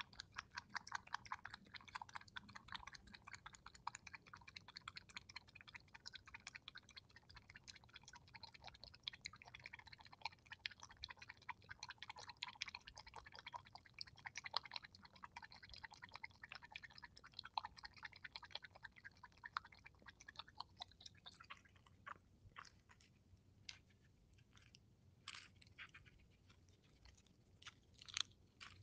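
Opossum lapping water from a metal bowl: rapid, even wet clicks, about four a second, that thin out to scattered clicks in the last third.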